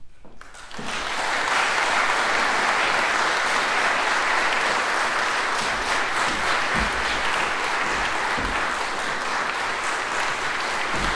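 An audience breaks into applause a little under a second in, and the clapping continues steadily.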